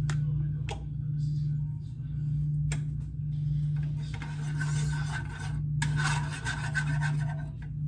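Kitchen handling noise while cooking: a few light knocks, then two stretches of rasping, rubbing noise of about two seconds each, over a steady low hum.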